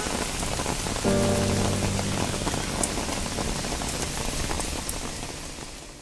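Steady rain falling on water and leaves. About a second in, a held chord of soft background music comes in under it, and both fade out near the end.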